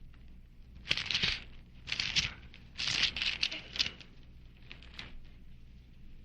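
Rustling of thin Bible pages being turned, in a few short bursts with light crackles, over a faint low hum.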